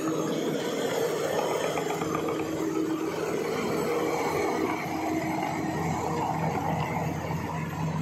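Bulldozer's diesel engine running steadily under work, a continuous mechanical drone with a few held tones.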